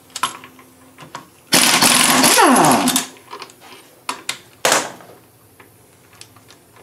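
Pneumatic impact wrench rattling a differential carrier bolt loose for about a second and a half, its air motor winding down with a falling whine, then a second short burst a couple of seconds later. Light metallic clinks of loose bolts in between.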